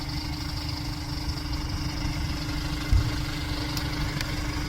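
A steady engine hum over a low rumble, with a single thump about three seconds in.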